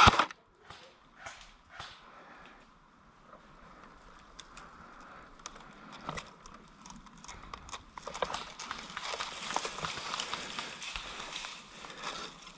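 Rustling and crunching with many small sharp clicks, like footsteps moving through brush, growing louder and denser from about eight seconds in.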